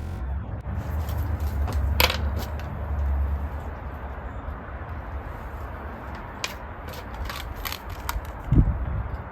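Low rumble of handling or wind on the microphone, with scattered clicks and knocks, a sharp one about two seconds in and a dull thump near the end.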